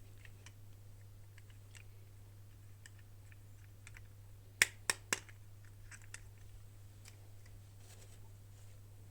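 Light plastic clicks and taps from toy packaging and small doll pieces being handled, with three sharp clicks in quick succession about halfway through.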